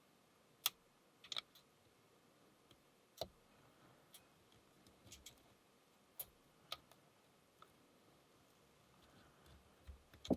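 Faint, sparse clicks of a lock pick working the pin stack of a Burg Wächter Karat padlock held under tension: single sharp ticks a second or more apart, with a louder click at the very end.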